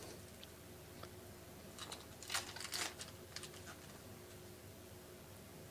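Faint rustling and soft flicks of baseball cards being handled and sorted through, a short cluster of crisp clicks about two to three and a half seconds in.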